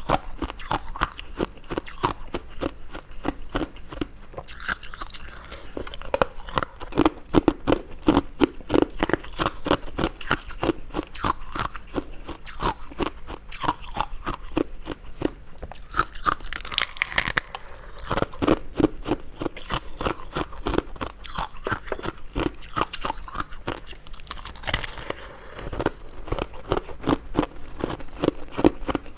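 Ice being chewed close to the microphone: a rapid, unbroken run of crisp crunches, several a second, with a few louder cracking bites.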